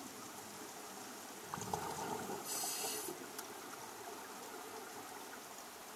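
Underwater ambience with scuba regulator breathing: a burst of exhaled bubbles about a second and a half in, then a short hiss, over a steady underwater hiss.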